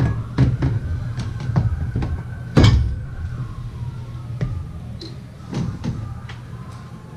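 Metal clanks and knocks as a Brunswick A2 pinsetter's rake assembly is handled and set into position, with one loud bang about two and a half seconds in. A steady low machinery hum runs underneath.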